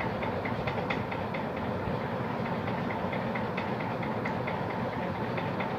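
A machine running steadily in the background, a constant whirr with a rapid, even clicking about five times a second.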